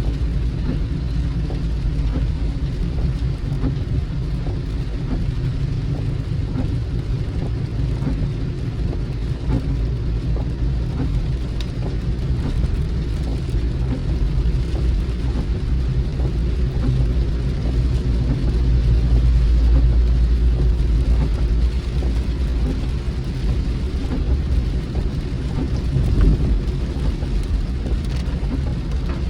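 Steady low road rumble of a car driving, heard from inside the cabin, with rain pattering lightly on the car. The rumble swells briefly about two-thirds of the way through.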